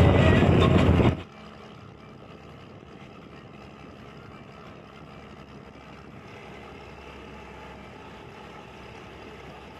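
Bus in motion: loud wind buffeting and road rumble through the open window, cutting off abruptly about a second in to a faint steady rumble of the running bus.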